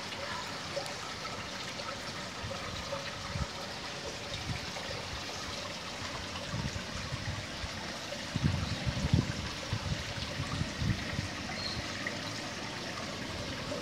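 Steady trickling, running water, with a cluster of short low thumps about eight to nine seconds in.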